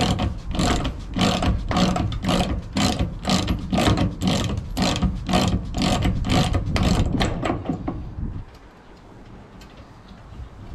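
Socket ratchet wrench clicking in quick, even strokes, about three a second, as a loosened steering-wheel nut is wound off its thread; the clicking stops about eight seconds in.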